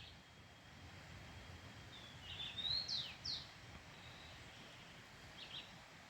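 Rufous-collared sparrow (tico-tico) singing faintly: a short phrase of slurred high whistles about two seconds in, ending in two quick downward-sweeping notes, then a brief fainter call near the end.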